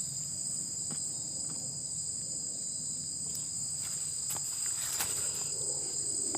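Steady chorus of insects, crickets, keeping up a continuous high-pitched trill on two high tones. A few faint clicks and knocks of objects being handled come through.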